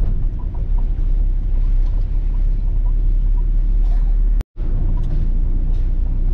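Steady low rumble of road, engine and wind noise inside a Hyundai hatchback's cabin while driving. The sound cuts out completely for a split second about four and a half seconds in.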